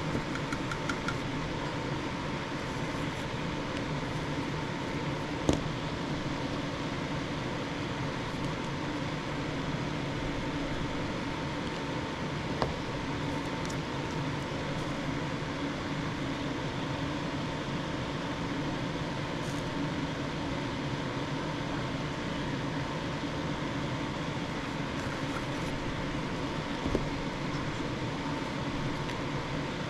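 Steady machine hum like a fan, with a thin constant whine running through it and a few small clicks.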